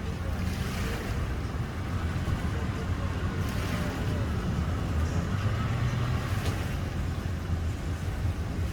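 An engine running steadily at low revs, a low even rumble.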